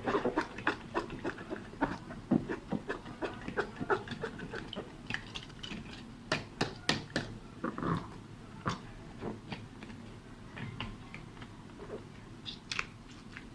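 Slime being worked by hand, with irregular sticky clicks and squelches, thicker in the first half and thinning out toward the end.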